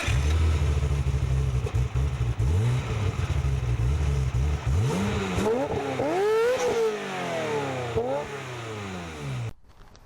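Engine running with a steady low rumble, then revved up and down several times, cutting off suddenly near the end.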